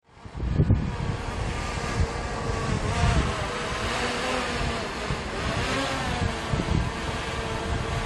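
DJI Mavic Air 2 quadcopter's propellers whining overhead, the pitch of the whine rising and falling as the drone manoeuvres. Wind buffets the microphone underneath.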